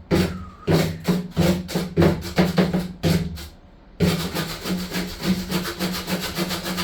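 Rhythmic scraping or rubbing strokes from a hand tool, about three a second, then after a short pause a quicker run of about eight a second, over a steady low hum.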